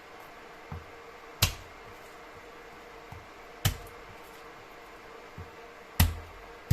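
A few sharp knocks and clicks, the loudest about two seconds apart with softer taps between, as things are handled and set down during kitchen preparation. Under them runs a faint steady hum.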